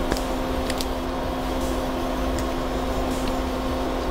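Steady low electrical hum with a constant tone, like a fan or air conditioner running, with a few faint clicks of hard plastic parts and pliers being handled.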